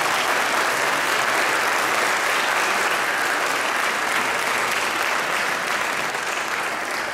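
Audience applauding steadily, a dense sustained clapping that eases slightly near the end.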